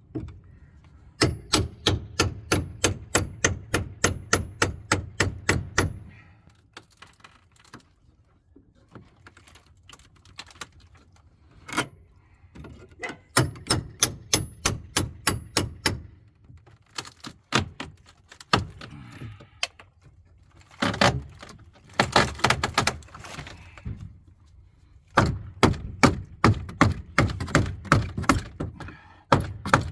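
Rapid, evenly spaced sharp knocks, about four to five a second, in runs of several seconds with irregular knocking between them, from fastening new 2x4 framing into the camper wall.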